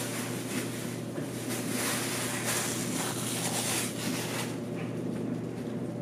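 Plastic produce bag rustling as groceries are handled and put away, over a steady low hum. The rustling fades about four and a half seconds in.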